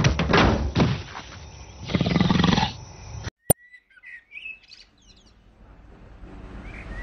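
A lion roars once, about two seconds in, as music dies away. After a sudden cut come faint bird chirps, then the rising noise of a car approaching down a road, growing steadily louder near the end.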